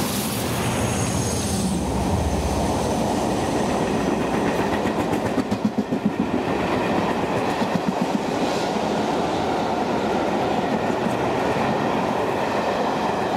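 A rake of passenger coaches rolling past at speed: a steady rumble of wheels on the rails, with groups of clickety-clack as the wheels cross rail joints about halfway through, and a faint high wheel squeal in the first couple of seconds.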